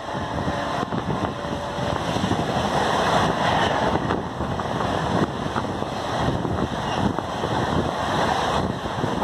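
LHB passenger coaches of an express train passing close by at speed: a steady rushing noise of wheels on rail and moving air.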